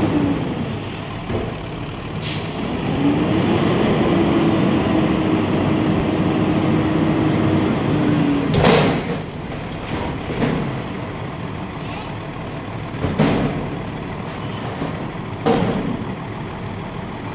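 Front-loading garbage truck running, its engine rising with a steady whine from about three to eight seconds in as the lift arms raise a dumpster over the cab. Then come several sudden loud bangs, the loudest about nine seconds in, as the raised container is emptied into the hopper.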